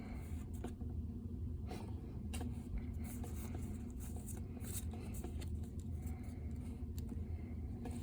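Pokémon trading cards being handled: scattered soft rustles and light clicks over a steady low hum.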